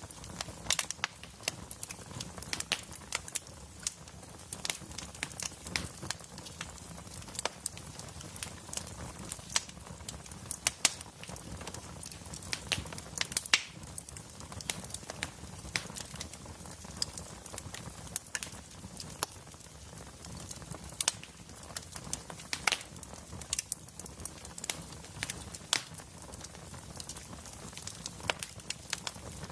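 Wood fire crackling: burning logs popping and snapping in sharp, irregular clicks over a low, steady hum.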